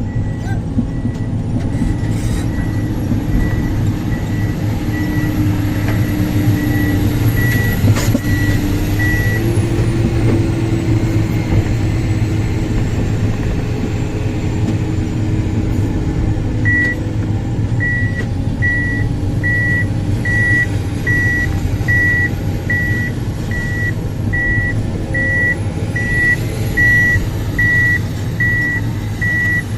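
Heavy diesel earthmoving machine running steadily under load, with a high whine that rises and falls away, and an alarm beeping about twice a second, which stops for several seconds partway through and then starts again.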